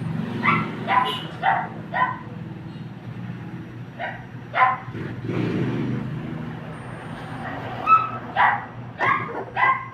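A dog barking in three short runs, about ten barks in all, four near the start, two in the middle and four near the end, over a steady low hum.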